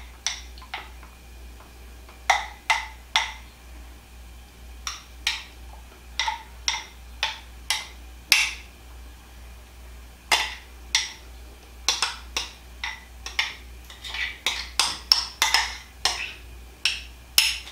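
A metal spoon clinking and tapping against a glass mixing bowl as thick mayonnaise and soup mixture is scooped out and dropped in dollops. The clinks come at irregular intervals and bunch together more near the end.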